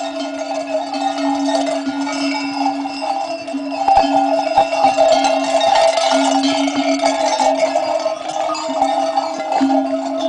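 Bells on a caravan of pack horses and mules ringing continuously as the animals walk by, many bells sounding at once with occasional sharper clangs.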